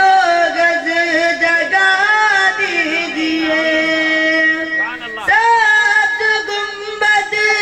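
A boy singing a naat unaccompanied into a microphone, drawing out long ornamented notes that glide and waver in pitch, with a short break for breath about five seconds in.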